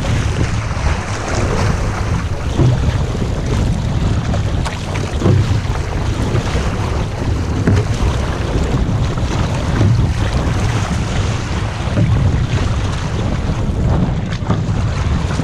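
Wind buffeting the microphone over water rushing and splashing along an outrigger canoe's hull as the crew paddles, with occasional sharper splashes.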